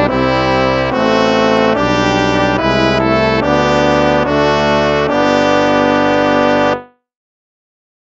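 An instrumental hymn in brass tones, full held chords moving about once a second. It closes on a longer held chord that cuts off about 7 seconds in, followed by silence.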